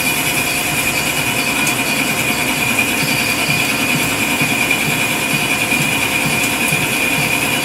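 Metal lathe turning a part under coolant spray: a steady machining noise with a high tone held over a spraying hiss.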